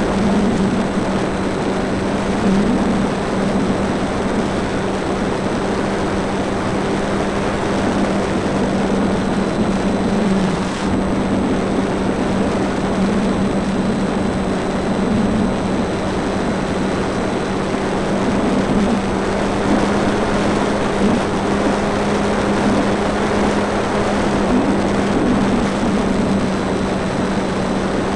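Onboard sound of an RC Fun Cub model plane in flight: the electric motor and propeller hum at a steady pitch under a constant rush of wind over the camera.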